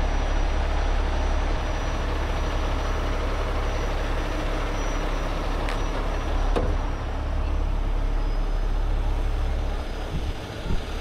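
Heavy rotator tow truck's diesel engine running steadily, a low rumble, with two faint clicks a little past midway.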